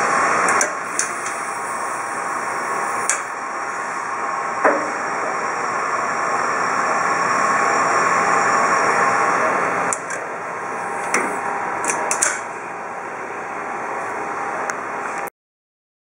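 Steady mechanical hum from the folder gluer, with scattered clicks and knocks as its roller assembly is adjusted by hand and its mesh guard is lowered. The knocks come about a second in, near three seconds, a louder one near five seconds, and a cluster between ten and twelve seconds. The sound cuts off abruptly near the end.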